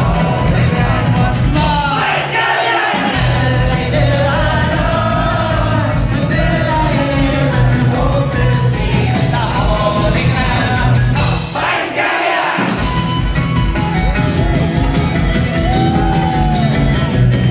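Live Irish folk band playing an instrumental break on banjo, acoustic guitars and drums, with a steady beat and a melody over it. The crowd shouts and sings along. The bass and drums stop for about a second twice, once near the start and once about twelve seconds in.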